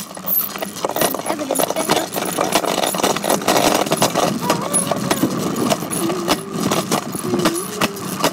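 Bicycle being ridden, a steady rattling noise full of small clicks and knocks, with a faint wavering squeak or voice partway through.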